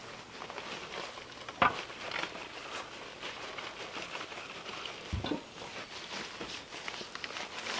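Irregular patter, scrapes and knocks of dry concrete mix being poured and worked in around the base of a wooden post, with two sharper knocks, one about a second and a half in and one about five seconds in.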